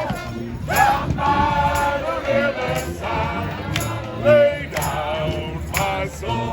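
Live street-band music, several pitched parts sounding together.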